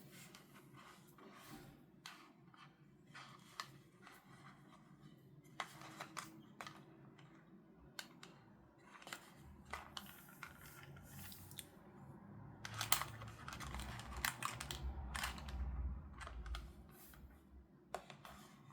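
Toy packaging and small plastic toy pieces being handled: scattered sharp clicks, taps and short rustles, busier and louder about two-thirds of the way through, with a low bump of handling.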